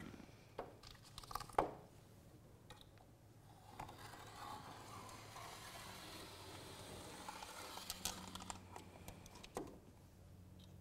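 Faint handling of wet window film at the edge of the glass as the excess is trimmed: a couple of light clicks about half a second and a second and a half in, then a faint steady scraping hiss from about four seconds in until near the end.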